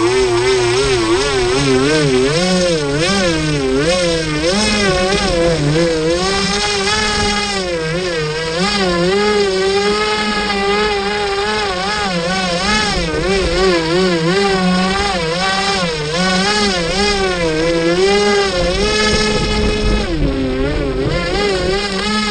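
Electric motor and air propeller of a scratch-built RC airboat on a 4S setup, heard from a camera on the boat itself: a steady buzzing whine whose pitch keeps rising and falling as the throttle is worked.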